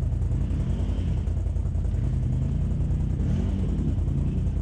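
ATV engines idling in a steady low drone, with one engine revving up and dropping back twice, about half a second in and again after about three seconds.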